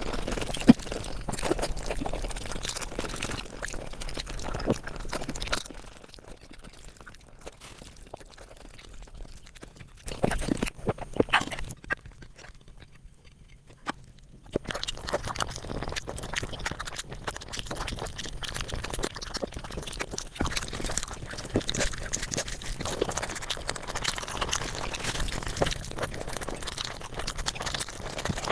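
Close-miked eating sounds sped up five times: a rapid patter of chewing, smacking and crunching, dropping quieter for several seconds in the middle.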